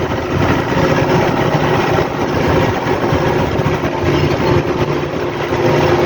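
Cabless farm tractor's engine running steadily as it drives along, heard from the open driver's seat, with an even rush of wind and rain noise over it.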